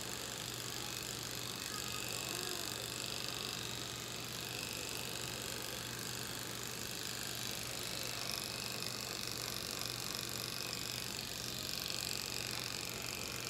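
Electric pet hair clippers running with a steady buzz, low hum under a hiss, as they shave a cat's fur.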